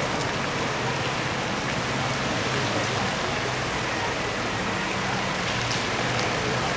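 Pickup truck engines running at low speed, tyres rolling slowly over a wet, muddy street, under a steady hiss.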